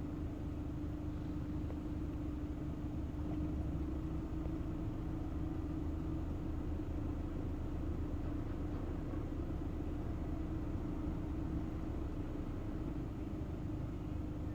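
Steady low background hum with one constant mid-low tone running through it.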